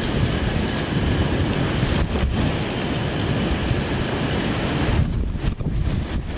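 Strong gusty wind from a thunderstorm's outflow, driving rain and buffeting the microphone with a deep, steady rushing. The hiss eases briefly about two seconds in and again near the end.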